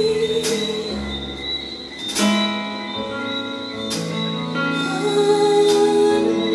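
A woman singing into a microphone, holding long notes with vibrato, backed by a live band of keyboards, guitars and drums. A few cymbal crashes ring out over the sustained chords.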